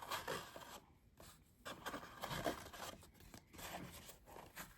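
Cardboard trading-card hobby box being handled and opened by hand: scattered rustling and scraping with short stops between.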